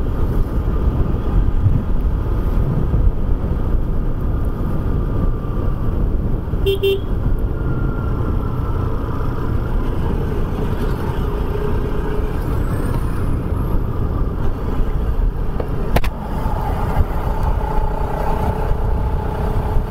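Bajaj Pulsar RS200 motorcycle ridden on the road, heard through a helmet-mounted mic: steady wind rush over the running engine. A short horn toot about seven seconds in.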